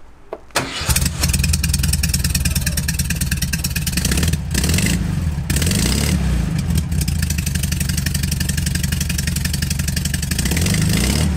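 A 1971 VW Super Beetle's air-cooled flat-four engine starts about a second in and then idles steadily. It is loud and throaty, running through its mufflers with the chrome exhaust tips removed, so it lacks the little chirpy sound that the tips give it.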